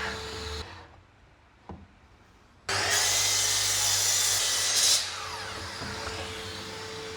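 Power saw cutting wood: a loud burst of cutting noise starts suddenly about two and a half seconds in and lasts about two seconds, then drops to a quieter steady running noise with a faint hum.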